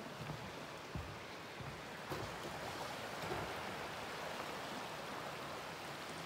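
Steady rushing of a creek flowing beneath a wooden footbridge, with a few soft footstep thumps on the bridge boards in the first couple of seconds.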